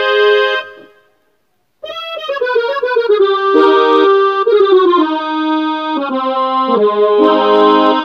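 Casio CTK-2550 portable keyboard playing its accordion tone. A held chord cuts off under a second in; after about a second of silence comes a run of notes stepping downward, then a series of held chords.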